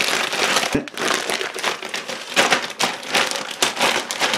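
Plastic Ziploc bag crinkling and rustling in swells as it is squeezed and kneaded by hand, working oil and dry seasonings into the chicken thighs inside, with one dull knock just before a second in.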